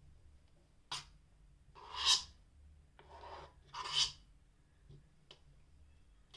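Spoon stirring glue and food colouring in a bowl: a sharp click about a second in, then two long scraping swishes as it drags around the bowl.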